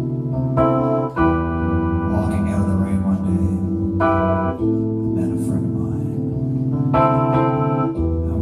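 Electronic keyboard playing slow held chords that change about every three and a half seconds, with a short run of higher notes coming in just before each change.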